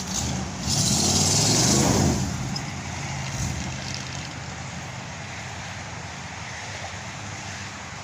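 A car engine revs up and falls back in the first two seconds, with a loud hiss at the peak, then runs on steadily.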